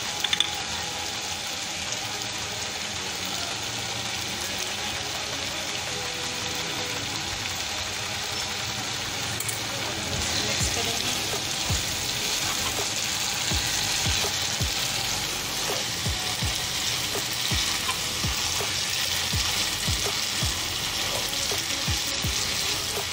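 Vermicelli cooking in sugar syrup and ghee, sizzling steadily in a non-stick frying pan. About halfway through a spatula starts stirring, adding repeated scrapes and taps against the pan and a louder sizzle.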